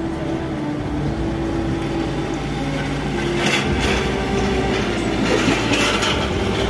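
Steady mechanical rumble of a vehicle with a droning hum, growing louder and hissier from about three and a half seconds in.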